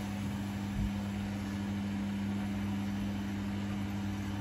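Samsung WF80F5E2W4W front-loading washing machine spinning its drum at a steady speed in a service-mode spin, with a steady motor hum and drum rumble and one low thump about a second in.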